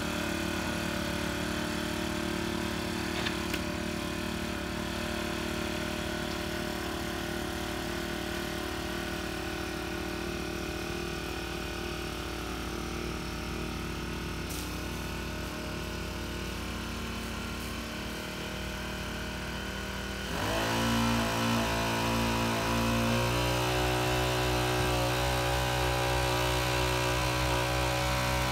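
Honda WX10 portable water pump's small four-stroke engine running steadily while pumping water out through a garden hose. About twenty seconds in its pitch rises and it runs louder, holding there.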